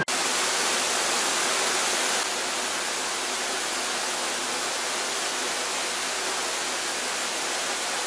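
Steady hiss of rushing water from a mountain beck pouring through a rocky gorge into a pool, dipping slightly in level about two seconds in.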